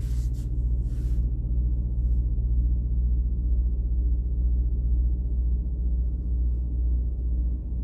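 A steady low hum with a deep rumble. There are two brief soft rustles in the first second or so.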